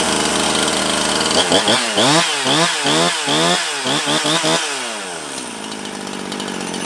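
Husqvarna 350 two-stroke chainsaw engine running just after starting, revved up and down in a string of quick throttle blips, then dropping back to a steady idle about five seconds in.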